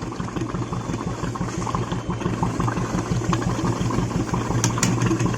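Royal Enfield Classic 350 UCE single-cylinder engine idling steadily, with no hydraulic tappet noise: its new hydraulic tappets and oil pump have cured it, and it runs completely silent at the top end. A few sharp clicks come near the end.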